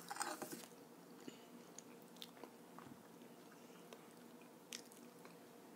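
Soft chewing and mouth sounds of French toast being eaten, with a short noisy burst at the start and scattered small clicks.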